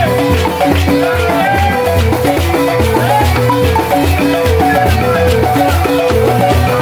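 Senufo balafon music: the wooden-keyed xylophone plays a fast, repeating pattern of notes over a steady low beat, with a rattle shaking along.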